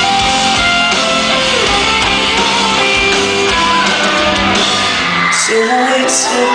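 Live pop-rock band music: electric guitar, piano and drums with singing, and high screams from the audience. About five seconds in, the drums and bass drop away.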